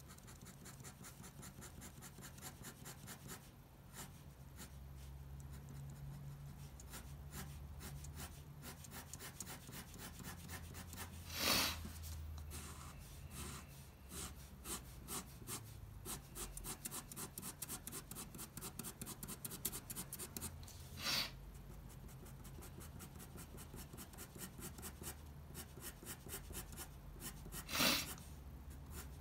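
Fine-tip pen hatching on paper: a quick run of short scratchy strokes laying down layers of lines. Three louder rubs come about a third of the way in, two-thirds in, and near the end.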